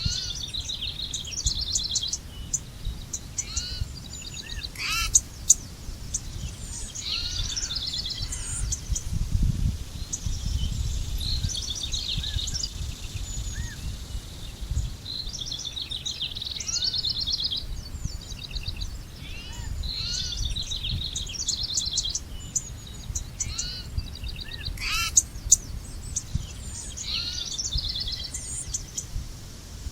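Several birds chirping and trilling in short repeated phrases, over a steady low rumble. Sharp clicks about five seconds in and again about twenty-five seconds in are the loudest sounds.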